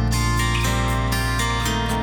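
Background music: strummed acoustic guitar over a sustained low bass note.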